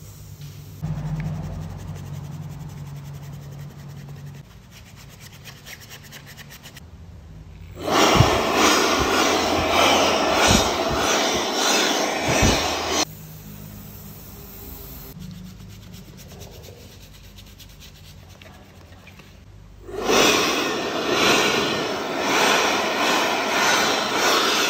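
Abrasive sanding on a helmet shell: two loud stretches of dense scraping, each about five seconds long, separated by a quieter gap, over a steady low hum.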